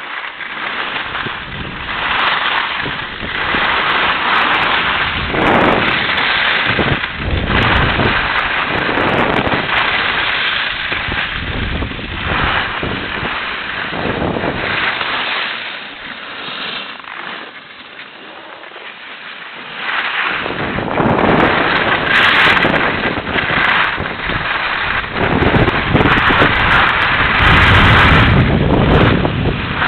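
Wind buffeting the microphone mixed with the scraping hiss of a snowboard's edges sliding over hard-packed groomed snow, swelling and fading with each turn and dropping back for a few seconds around the middle.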